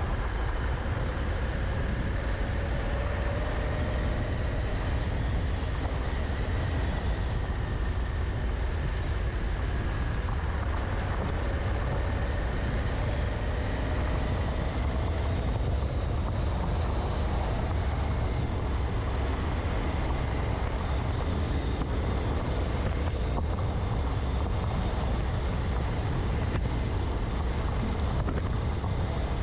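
Honda Africa Twin motorcycle riding along a gravel forest track: the engine running at a steady cruise, its pitch drifting slowly up and down, under a heavy wind rumble on the microphone.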